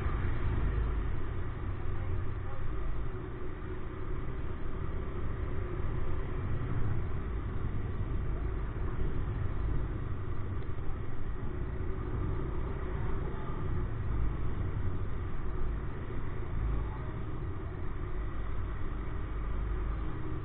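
Motorcycle riding slowly through city traffic: its engine running steadily, with the rumble of road and traffic around it.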